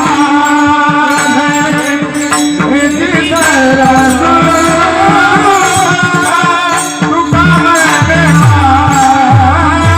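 Marathi devotional bhajan music: a sustained melody line over a hand drum's low strokes that slide down in pitch, with jingling percussion.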